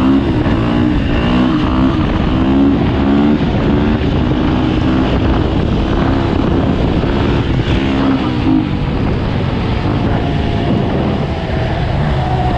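Dirt bike engine running under way on a paved road, its pitch shifting up and down with the throttle for the first eight seconds or so and then holding steadier, with wind noise on the microphone.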